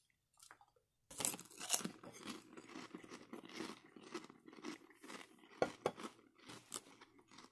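A person biting into a crisp fried pork rind, with a sharp crunch about a second in, then chewing it in a run of irregular crackling crunches.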